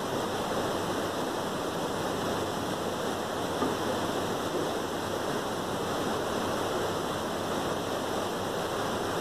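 Mutton karahi sizzling steadily in hot oil in the karahi pan, an even hiss.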